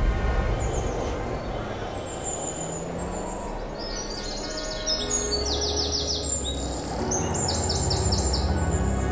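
Birds chirping in quick runs of short high notes, from about four seconds in and again near the end, over soft ambient background music with a low drone.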